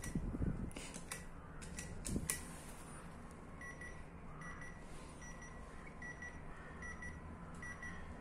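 Urmet door-entry intercom panel: a few keypad button clicks as a flat number is dialled, then the panel's calling tone, short high beeps repeating, often in pairs, while the call rings through to the flat.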